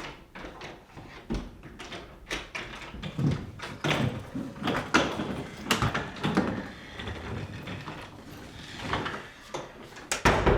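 Irregular knocks, clatters and rustles of objects being handled in a small room, like doors or drawers being opened and shut.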